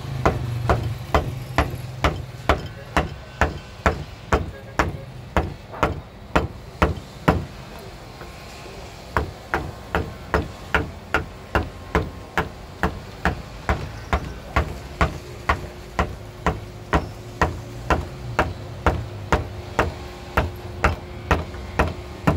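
A carving chisel struck in steady, even knocks, about two to three a second, as it cuts into wood, with a pause of about two seconds a third of the way in.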